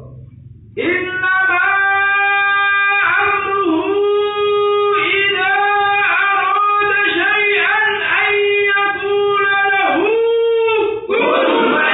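A single high voice singing a slow, ornamented shalawat melody, holding long notes with small bends; about eleven seconds in, a group of voices joins in.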